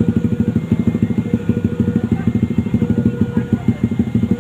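An engine running steadily with a rapid, even throb of about ten pulses a second.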